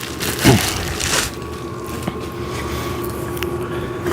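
A plastic foot cap scraping as it is slid onto the end of the exercise machine's square steel tube, about a second in. A steady hum runs under it after that.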